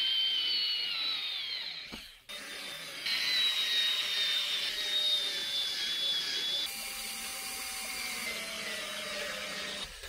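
Small power tool running with a high-pitched motor whine that sags slowly in pitch as it works under load. It cuts out abruptly about two seconds in, then comes back, changing tone suddenly a few more times.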